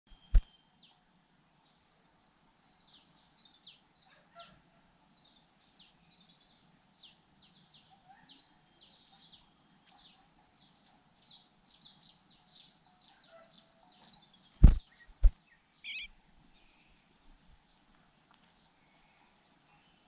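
Cuckoo chick begging in its nest: many thin, high, short falling chirps in quick runs. A few sharp knocks break in, once near the start and twice, loudest, about three-quarters of the way through.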